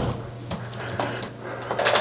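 A newly fitted entry-door deadbolt being worked by its thumb turn, giving short metal clicks about a second in and again near the end. A low steady hum runs underneath.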